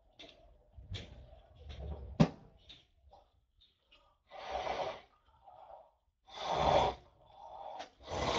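A man breathing out hard twice, in long noisy breaths, after soft rustling and a sharp click about two seconds in.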